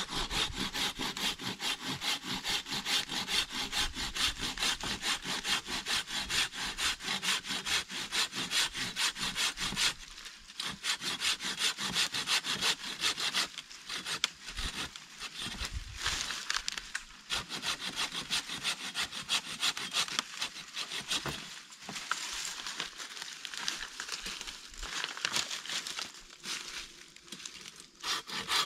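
A small hand saw cutting through a standing tree branch in quick, even back-and-forth strokes, with a few short pauses.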